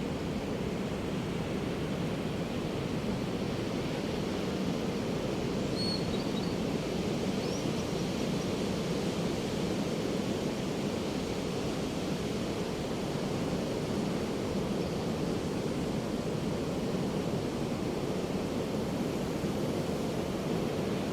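Ocean surf washing onto a beach: a steady, even roar of breaking waves with no single crash standing out. Two brief, faint high chirps come about six and seven and a half seconds in.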